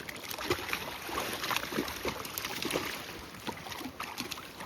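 River water splashing and plopping in many small, irregular bursts as a hooked sucker is reeled in to the bank, over a steady wash of wind on the microphone.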